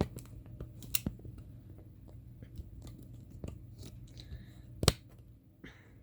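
Scattered small clicks and knocks of handling, the loudest about five seconds in, over a steady low hum.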